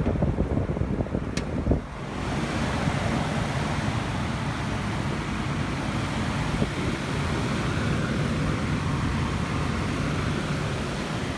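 1998 Mazda MPV engine idling with a steady low hum while its transmission fluid is checked warm. About two seconds in, a steady rushing noise joins it.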